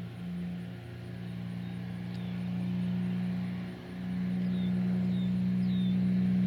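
A Cessna 421's twin geared, turbocharged Continental flat-six engines running at taxi power, a steady low drone that grows louder as the plane comes closer; the two engines' hum beats slightly at first, then evens out. Three short, high, falling chirps sound near the end.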